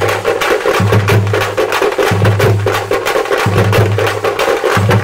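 A troupe of folk drummers beating waist-slung drums together in fast, dense strokes, with a low tone sounding in long repeating pulses underneath.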